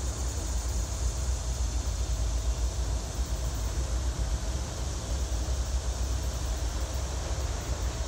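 Diesel locomotives of a CSX freight train approaching slowly, a steady low rumble with a hiss over it.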